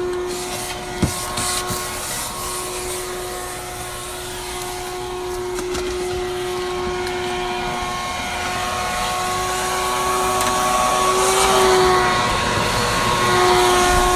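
A motor running steadily with a high whine over a rushing hiss. The whine wavers briefly in pitch a little after eleven seconds in.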